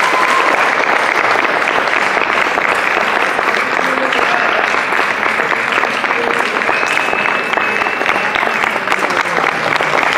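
Theatre audience applauding steadily, with an occasional cheer rising above the clapping.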